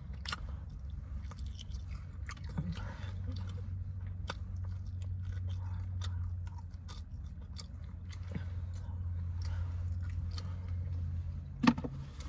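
Close-up chewing and biting of food, with many short mouth clicks scattered through. A steady low hum runs underneath.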